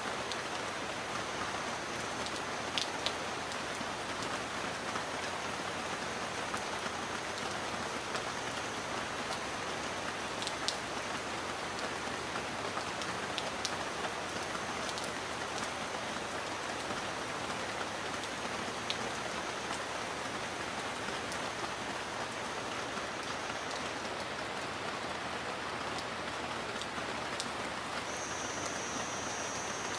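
Heavy rain falling steadily, an even hiss with occasional sharp clicks of single drops striking a surface.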